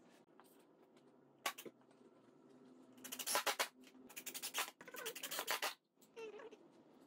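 Wooden boards being pushed and slid across a padded moving blanket, rubbing and scraping: a short scrape about a second and a half in, then three longer rubbing strokes between about three and six seconds.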